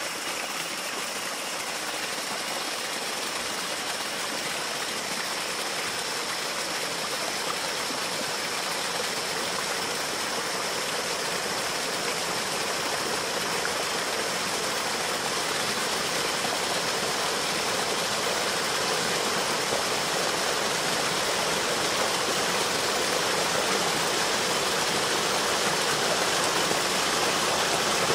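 Steady rush of running water, slowly growing louder, with a faint thin high tone held above it.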